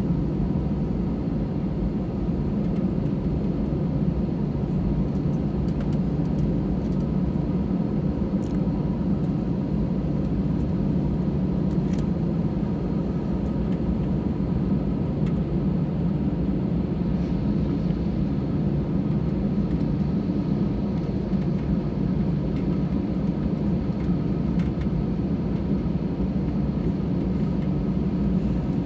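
Jet airliner cabin noise while taxiing after landing: a steady low rumble from the engines at taxi power and the rolling airframe, heard inside the cabin, with a faint steady whine.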